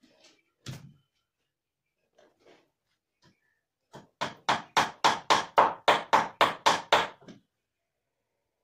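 About a dozen quick, evenly spaced blows, about four a second, as a hand strikes the clay-and-straw body of a large sculpted animal figure, preceded by a few faint knocks.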